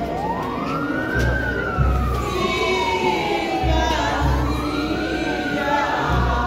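Siren wailing, its pitch sweeping up quickly and falling slowly about every four seconds, with low booming beats underneath.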